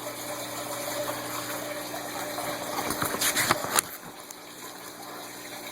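Steady low hum and hiss in the background, with a short burst of paper rustling about three seconds in as a booklet page is turned.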